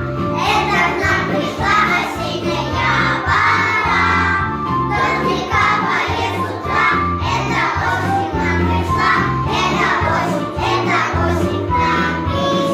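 Young children singing a children's song together over a recorded instrumental backing track.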